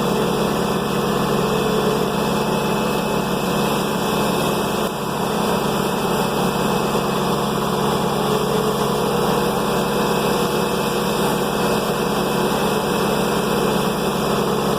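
An engine running at a steady speed, with one brief dip in level about five seconds in.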